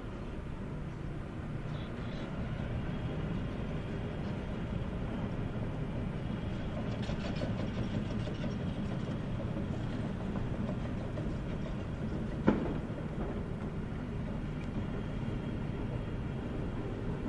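Steady low outdoor city background noise of distant traffic, with one sharp click about twelve and a half seconds in.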